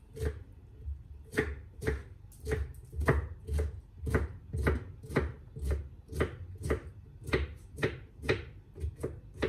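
Chef's knife finely chopping cucumber on a wooden cutting board. The blade knocks on the board in a steady rhythm, about twice a second.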